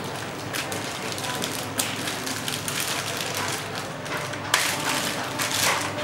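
Clear plastic bag around a laptop crinkling and rustling as hands press and pull at it, with a sharper crackle about four and a half seconds in.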